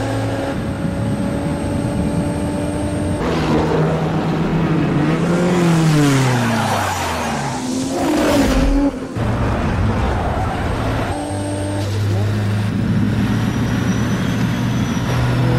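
Sports car engines running hard at high speed. A few seconds in the engine notes slide down and up as tyres skid and a car spins off the road; a steady engine drone takes over again after a sudden break near the middle.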